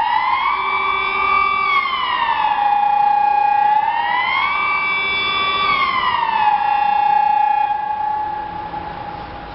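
Electronic civil-defence siren sounding the Swiss 'general alarm' signal: a loud tone that slides up, holds, slides back down and holds low, twice over about seven seconds. It then dies away about eight seconds in, leaving a fainter steady tone.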